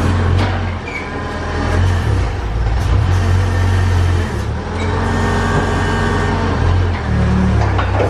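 Yale forklift engine running, its note rising and falling as the forklift sets a pallet into a box truck and backs away, with a few clicks and knocks.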